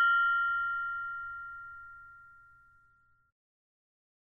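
A mindfulness meditation bell, rung once every 20 seconds, ringing out after its strike. Its higher tones fade first, and its lowest clear tone lingers until about three seconds in before dying away into silence.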